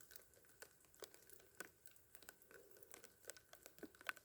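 Near silence, with faint, irregular ticks of drips falling in a light drizzle.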